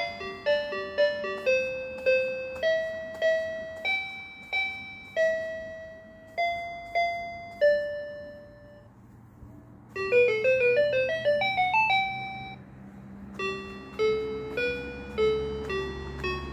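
Electronic piano tones from a children's floor keyboard mat, its keys pressed one at a time to pick out a simple melody, each note fading quickly. After a short pause past the middle comes a quick rising run of notes, then single notes again.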